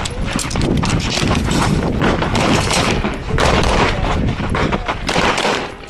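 Pistol fired in quick strings, several shots a second with short breaks between them, during a timed competition stage.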